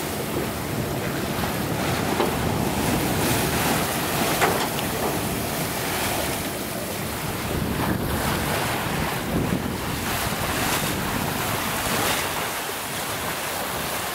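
A sailing yacht's bow wave rushing and splashing along the hull under sail, with wind buffeting the microphone. There are a few sharper splashes.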